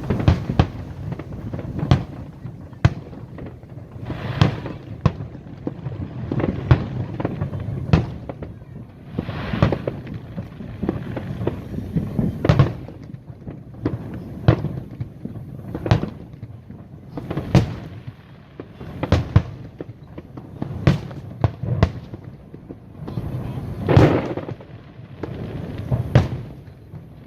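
A fireworks display: aerial shells bursting in an irregular run of loud bangs, about one or two a second, with crackling between them.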